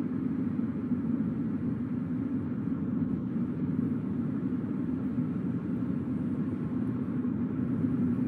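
Steady low rumble of a car driving along at a constant pace: road and tyre noise mixed with engine sound, with no distinct events.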